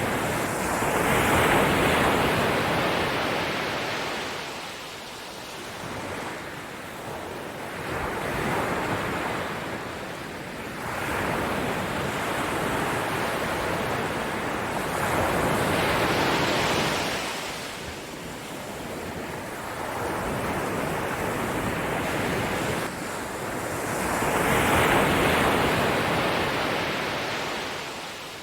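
Ocean surf: waves breaking and washing in, swelling and fading in slow surges several seconds apart.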